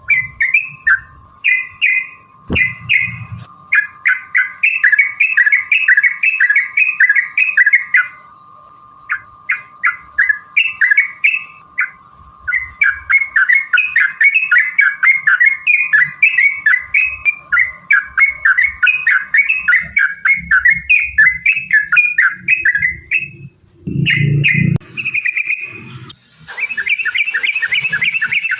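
Yellow-vented bulbuls (trucukan) singing in long, fast runs of chattering notes, phrase after phrase with only brief pauses: the rapid 'ropel' song used to provoke other bulbuls into answering. A faint steady tone lies underneath for the first two-thirds, and a few low thumps come near the end.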